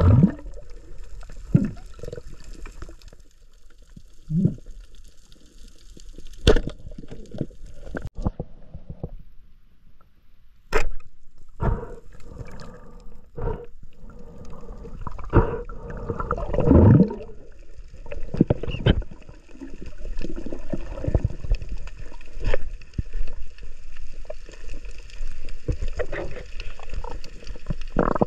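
Water gurgling and sloshing, with irregular muffled knocks and swells.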